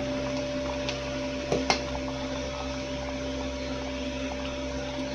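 Steel ladle stirring simmering sambar in a steel pot, with a couple of light clinks of the ladle against the pot about a second and a half in, over a steady hum.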